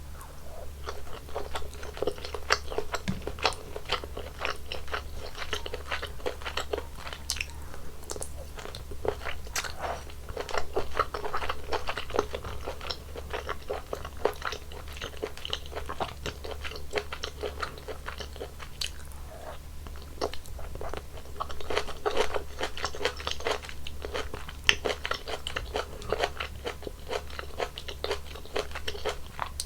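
Close-miked chewing and crunching of mouthfuls of malatang: a continuous run of wet crunches and bites, busier in a couple of stretches.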